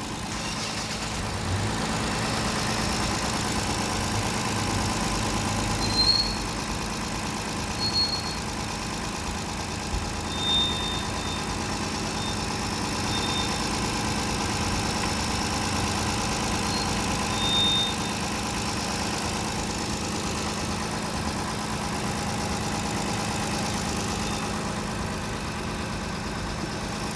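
Kia Carnival 2.7 LPG V6 engine idling steadily, a little warmed up, with a light tapping still present that is not the tappets: the mechanic traces it to piston slap from worn pistons. A few brief high chirps sound over the idle.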